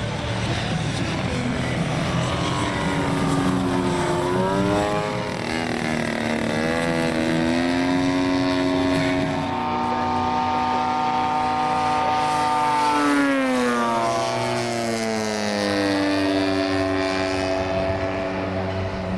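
Gas engines of large-scale radio-controlled warbird models flying overhead, a steady propeller drone whose pitch rises and falls several times as they make their passes.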